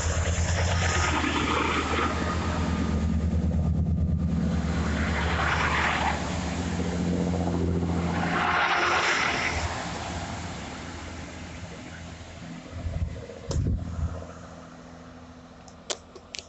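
A train passing with its diesel engine running, together with rushing wheel noise; it fades away after about ten seconds, leaving a few small knocks.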